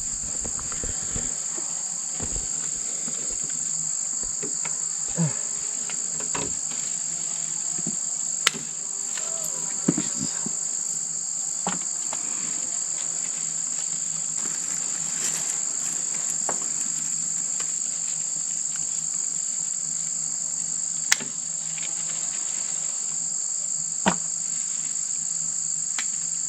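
Steady high-pitched drone of a late-summer insect chorus, with a few sharp clicks or snaps over it, the loudest about a third of the way in and twice more near the end.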